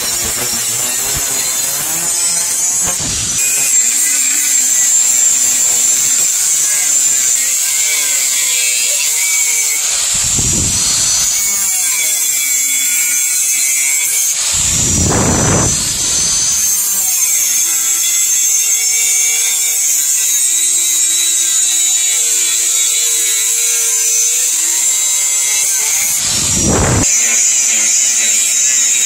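Electric angle grinder with a thin abrasive cut-off disc cutting through chainsaw bar steel plate, a steady high-pitched whine of disc grinding on steel. The sound thickens and deepens briefly a few times as the cut goes on.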